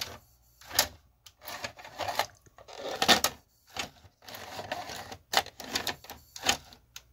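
Cassette loading mechanism of a Fisher FVH-4901 VCR taking in a VHS tape, clattering and clicking irregularly. The gear train is not meshing cleanly, which the repairer thinks is because a gear slipped out of line with the motor's spiral gear during reassembly.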